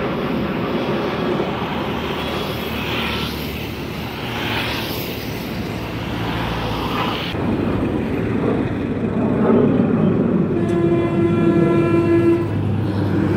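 Jet noise from BAE Hawk jet trainers passing overhead in formation, a steady rushing sound that swells and sweeps in pitch as they go by. About eleven seconds in, a steady pitched hoot sounds for under two seconds.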